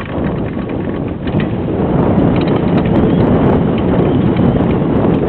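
Downhill mountain bike running fast down a dry dirt trail: wind rushing over the rider-mounted camera's microphone, tyres on loose dirt and the bike rattling and knocking over bumps. It gets louder over the first couple of seconds as speed builds, then holds.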